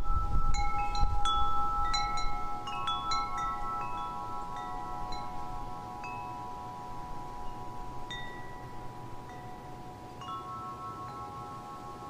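Wind chimes ringing: a scatter of struck bell-like notes, each ringing on and overlapping, thickest in the first few seconds and thinning out after. A low wind-like rumble underneath fades out in the first couple of seconds.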